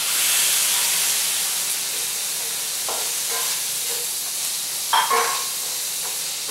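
Coconut milk hitting a hot stainless-steel pan of cauliflower and sizzling, loudest in the first second, then settling to a steady sizzle as a wooden spoon stirs the florets. There are short scrapes and a brief sharper clatter of the spoon about five seconds in.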